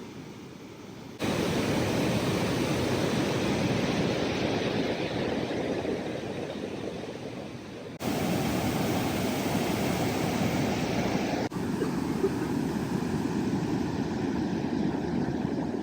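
Steady rush of a waterfall's falling water. It jumps abruptly louder about a second in, then changes tone and level sharply twice more.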